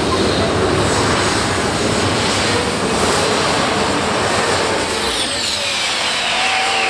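Heavy modified pulling tractor running at full power under load from the brake sled, with a high-pitched whine over the engine noise. About five seconds in, the power comes off and the whine and engine tones glide down together.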